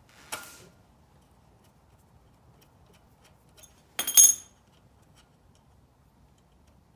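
Small metal bicycle brake parts clinking as they are handled and taken off: a brief rustle near the start, faint ticks, then one loud ringing metal clink about four seconds in.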